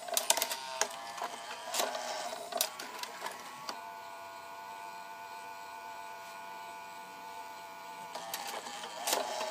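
Sony-built 10-disc CD changer mechanism at work: a run of clicks and clatter as it moves a disc into place, then a steady whine for about four seconds as the disc spins, then more clicks near the end. The changer cannot keep the disc spun up.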